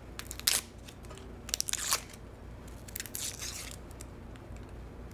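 Dry, papery onion skin crackling and tearing as it is peeled off the onion by hand, in three short bursts.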